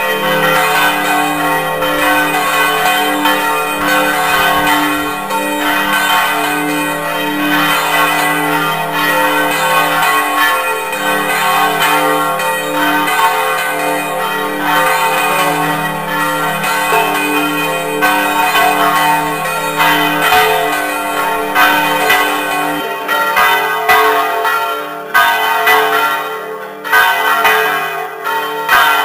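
Church bells ringing from the bell tower: a steady peal of overlapping strokes whose tones hang on and blend, with sharper, more distinct strikes near the end.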